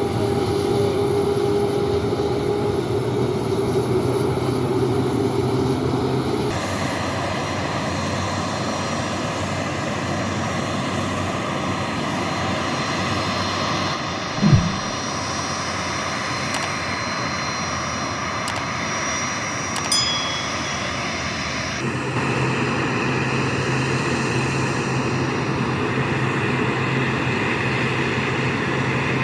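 Jet engines of a Boeing 737-300 cargo plane running steadily, a rushing noise with a high whine. The sound changes abruptly twice. There is a dull thump about halfway through and a short knock a few seconds later.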